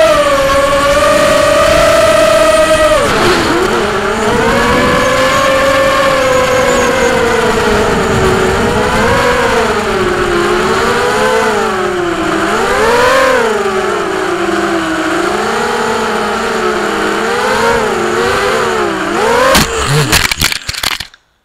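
FPV quadcopter's brushless motors (Cobra 2204 1960 kV on 5-inch props) whining, a stack of tones that holds high for about three seconds, drops sharply, then wavers up and down as the throttle changes. Near the end the whine breaks into a rapid run of knocks and stutters as the quad tumbles, and the sound cuts off.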